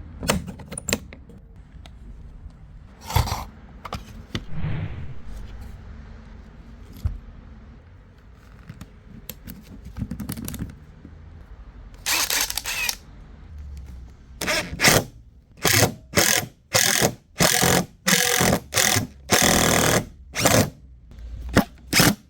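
DeWalt impact drill run in short trigger bursts: one burst of about a second around twelve seconds in, then a quick string of short pulses over the last eight seconds, with scattered knocks and clicks before.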